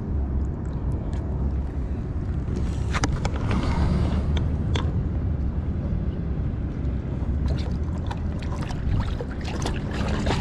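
Water splashing as a rainbow trout is let go by hand at the water's edge: a few sharp splashes about three seconds in and a cluster of them near the end. Under it runs a steady low rumble of wind on the microphone.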